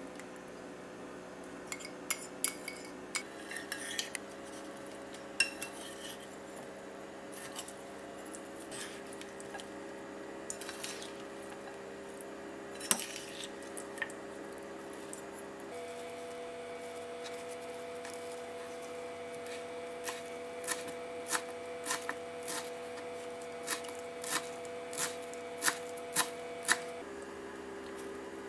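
Utensils clinking and scraping against a ceramic bowl as a green bean salad is tossed in its dressing: scattered clinks at first, then a run of evenly spaced clinks about twice a second near the end. A steady low hum runs underneath.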